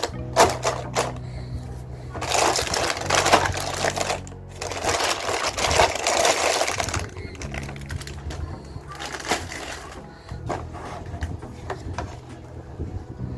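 Plastic marble-run pieces and glass marbles clattering: sharp separate clicks, then several long stretches of dense rattling.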